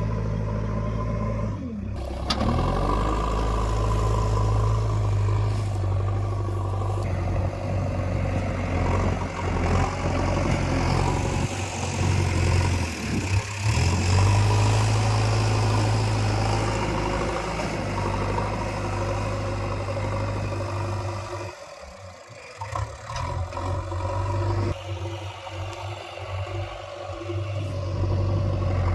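JCB 3DX Eco Xcellence backhoe loader's diesel engine running under changing load while digging soil, its level rising and falling. The deep engine note drops away for a few seconds about three-quarters of the way through, then returns.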